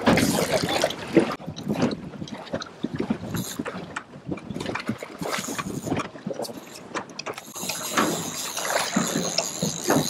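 Water slapping and lapping against a small boat's hull, with uneven knocks and wind on the microphone.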